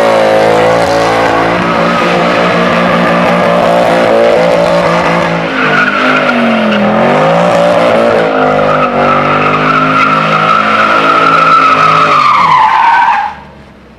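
Estate car doing smoky doughnuts: the engine is held at high revs with the driven tyres spinning and squealing. The revs dip and climb again about seven seconds in, and near the end the squeal slides down in pitch and everything stops suddenly.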